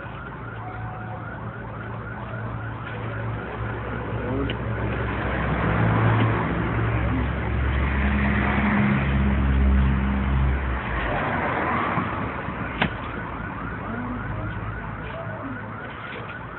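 Low steady hum of a motor vehicle's engine, swelling toward the middle and fading again. Early on there is a fast repeating high warble, and there is one sharp click near the end.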